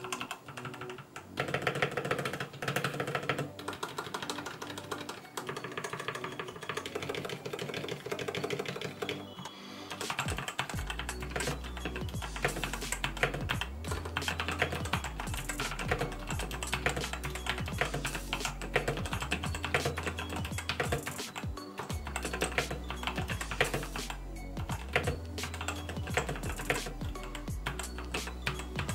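Rapid typing on a Rexus Daiwa RX-D68, a 68% mechanical keyboard with a plastic case: a dense run of key clicks and clacks. Background music plays under it, with a bass line coming in about ten seconds in.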